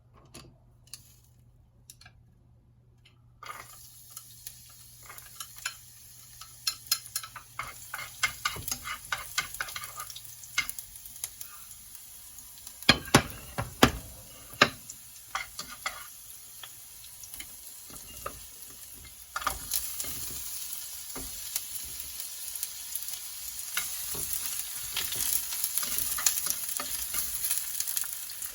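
Food frying in hot oil in a pan, sizzling steadily from a few seconds in, with a utensil stirring and tapping against the pan; the sharpest clacks come around the middle, and the sizzle grows louder over the last third.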